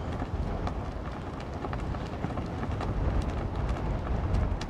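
Wind rumbling on the microphone in rain, with scattered sharp ticks of raindrops.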